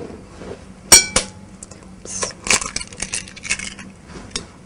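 Eggs cracked on the rim of a glass mixing bowl. A sharp glassy clink rings briefly about a second in, then lighter taps and clicks follow.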